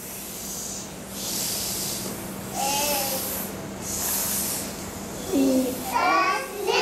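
A group of young children hissing together, four times about a second and a half apart, with a short sung or spoken sound between; their voices come back near the end.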